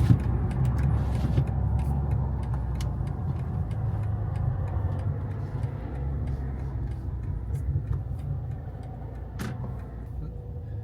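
BMW M340i running at low speed, with a steady low engine and road rumble heard from inside the cabin that gradually eases off. A few light clicks sound through it, with a sharper click about nine and a half seconds in.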